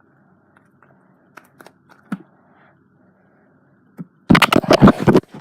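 Sticky glossy butter slime being handled: a few soft clicks, then near the end about a second of loud, dense crackling and popping as the slime is squished and pulled apart.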